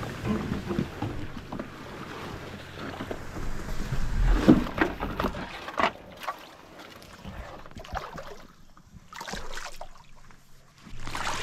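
Tall grass and reeds brushing and rustling against clothing and a stand-up pedalboard as it is pushed from the bank into shallow water, with scattered knocks and light sloshing of water.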